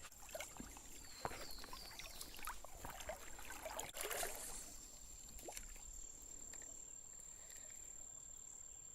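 Faint creek-side sounds: water trickling and splashing lightly, with scattered rustles and small knocks and a louder swish about four seconds in. A thin, steady high whine runs underneath.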